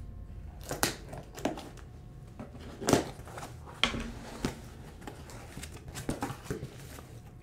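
A cardboard box being handled and opened: a series of separate knocks, scrapes and rustles of cardboard and packing tape, the sharpest knock about three seconds in.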